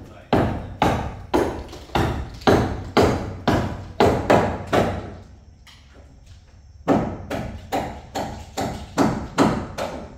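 Repeated hard blows, about two to three a second, in two runs with a pause of about two seconds midway, each strike followed by a short ringing decay.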